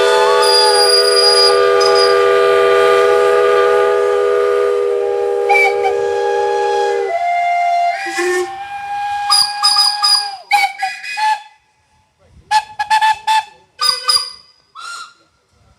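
Several steam locomotive whistles sounding together in one long, chord-like blast. Most drop out about five to seven seconds in, one whistle carries on alone for a few seconds more, then a series of short toots follows.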